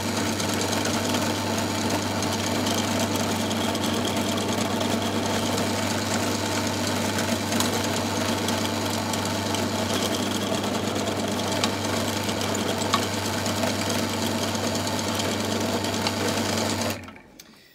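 Bench pillar drill (drill press) motor running steadily while it drills small pilot holes into a strip of wood. It is switched off and runs down near the end.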